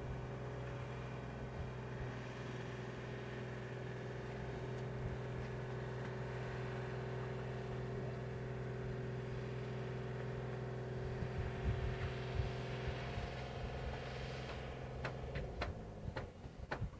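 An engine running steadily with a low, even hum. Its tone changes slightly about 13 seconds in and it stops near the end, followed by a few sharp clicks.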